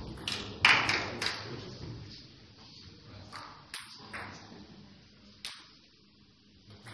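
Table tennis balls ticking: a quick run of sharp clicks in the first second or so, then single scattered clicks, each with a short hall echo.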